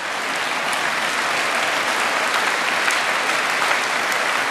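Large seated audience applauding steadily.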